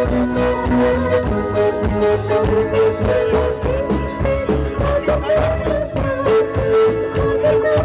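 Live band music with a singer holding long notes over a steady drum beat and guitar.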